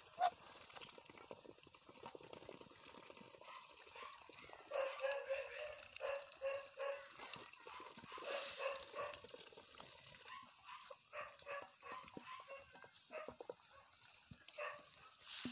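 Muscovy ducks feeding from a metal bowl of wet grain mash and cashew fruit: many quick clicks and wet slurps of bills dabbling in the food. A run of short, repeated calls comes from about five to nine seconds in, with scattered calls later.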